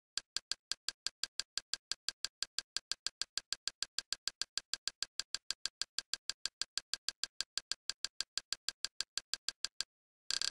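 XBMC menu navigation click sound repeating evenly, about six identical short ticks a second, as the cursor steps down the list item by item. The ticks stop about ten seconds in, and a dense run of clicks starts just at the end.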